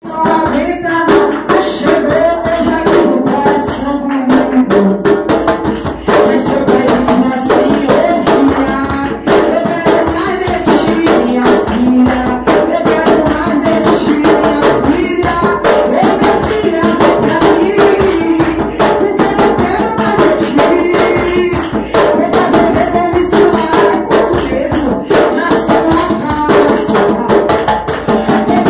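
Church music: voices singing over a rapidly shaken and struck tambourine keeping a steady rhythm.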